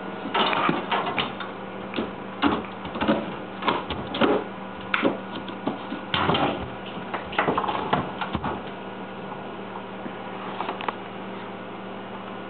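Yellow Labrador puppy scrambling about in a refrigerator: irregular clattering, scratching and knocks for the first eight or nine seconds, then only a steady low hum.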